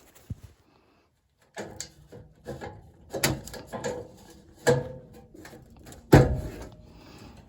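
Clicks, knocks and rattles of metal parts and tools being handled inside a furnace cabinet, with the loudest knock about six seconds in, as the blower motor's run capacitor is taken out for testing.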